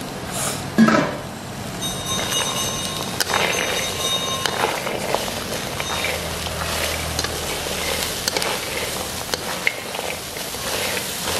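Wooden spatula stirring and tossing shallots, garlic, chillies and small green peas in a metal wok, the vegetables tumbling and the spatula scraping and clinking against the pan, with one louder knock about a second in.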